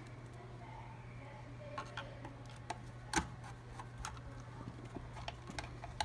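Small screws being driven by hand with a Phillips screwdriver into a hoverboard's plastic shell: scattered light clicks and ticks, with a sharper click about halfway through and another at the end.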